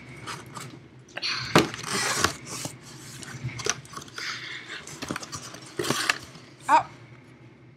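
Cardboard boxes being handled: flaps pulled open and shut, with rustling cardboard and irregular knocks and clatter of things moving inside the box, and a short rising squeak near the end.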